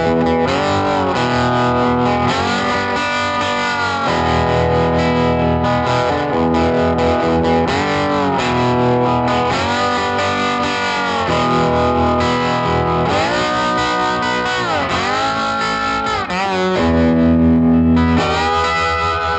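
Electric guitar playing an instrumental intro, its notes repeatedly bending up and down in pitch.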